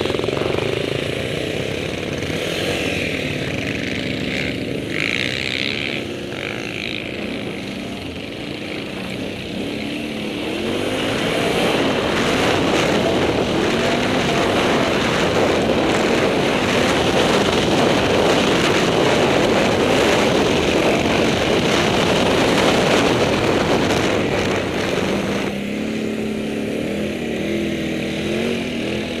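Can-Am Outlander 800 XXC quad's V-twin engine under way, its note rising and falling as the throttle is worked. From about eleven seconds in to about twenty-five the engine is louder and buried in heavy wind rush on the helmet-mounted microphone, then the engine note comes back clearly near the end.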